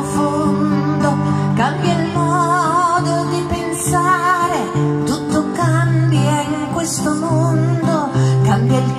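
Live acoustic folk music: acoustic guitars playing steady chords while a woman sings a melody with vibrato.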